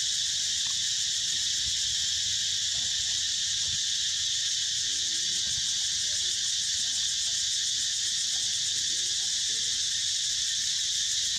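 A steady, high-pitched insect chorus: an even, shrill buzz that does not let up.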